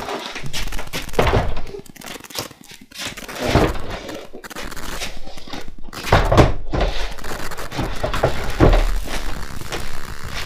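A large aluminium-framed, plywood-topped bench being turned over and set down on trestles: a series of wooden thunks and knocks with scraping and handling noise, the heaviest knock about six seconds in.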